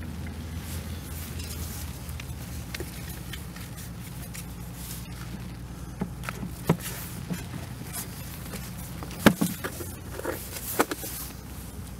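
Close handling noise: the rustle of a nylon rain jacket and scattered light clicks and taps as hands work fishing tackle, over a steady low rumble. The sharpest knock comes about nine seconds in.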